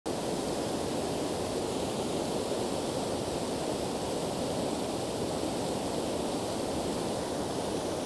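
Waterfall and rapids rushing steadily: an even, unbroken wash of falling and churning water.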